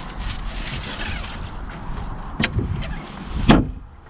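A boat's deck storage hatch lid shut with a sharp knock about three and a half seconds in, after a smaller knock a second earlier, over a steady low rumble.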